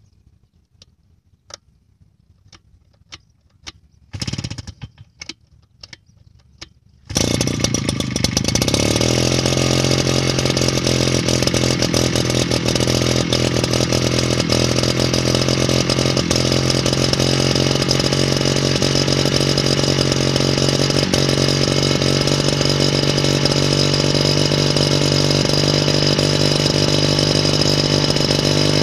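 Small engine of a Victa backpack power sprayer being started: a few clicks and a short pull of the starter cord. About seven seconds in it catches, settles within two seconds and runs on at a steady idle.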